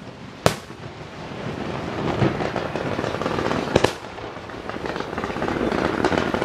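Fireworks finale: a continuous dense barrage of overlapping bursts, with sharp bangs about half a second in and a close pair just before four seconds.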